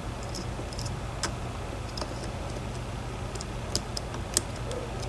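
Scattered, irregular light metallic clicks of a lock pick working the pins inside a DOM IX 10 dimple lock, over a steady low hum.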